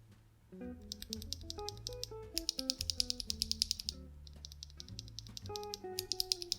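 Fast typing on a mechanical keyboard with Gateron CJ Box linear switches, Domikey keycaps and an integrated aluminium plate: a rapid run of key clacks starting about a second in, easing briefly near the middle and picking up again. Background music with plucked guitar-like notes plays under it.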